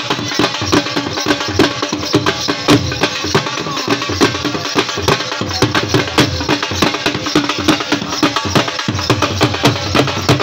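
Live Saraiki jhumar music: two dhol drums beating a dense, fast rhythm of sharp strokes, with a shehnai playing over them.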